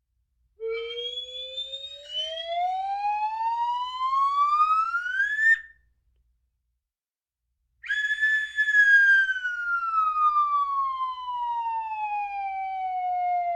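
Cartoon slide-whistle sound effects: one long whistle gliding steadily upward in pitch, then after a short silence another long whistle gliding slowly downward.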